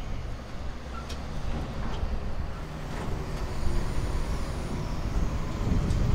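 Truck engine running with passing street traffic: a low, steady rumble, with a few faint clicks.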